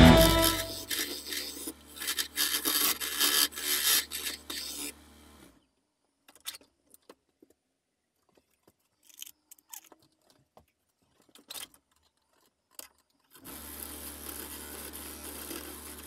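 Bowl gouge cutting inside a spinning wooden bowl on a wood lathe: irregular scraping strokes over the lathe's steady low hum. About five seconds in the lathe falls silent apart from a few faint clicks. Near the end the hum starts again with light cutting.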